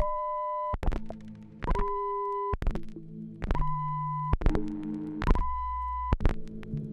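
Abstract turntablism: a turntable playing broken vinyl record shards through a mixer, giving a string of short steady beep-like tones that change pitch about every second. Each change is cut by a sharp click, and a low hum sits under some of the tones.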